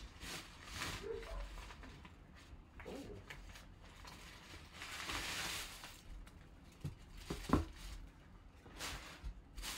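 Rustling of a black drawstring helmet bag and clear plastic wrap as a full-size football helmet is slid out and handled, with a few sharp knocks about three-quarters of the way through.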